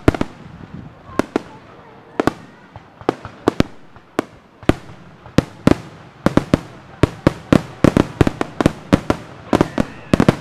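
Aerial fireworks shells bursting in a rapid, irregular series of sharp bangs, which come thicker and faster from about six seconds in, several a second.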